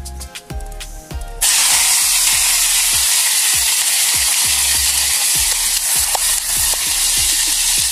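Raw meat dropped into hot oil in a small camping pan over a wood fire, starting suddenly about a second and a half in and then sizzling loudly and steadily. Background music with a steady beat plays throughout.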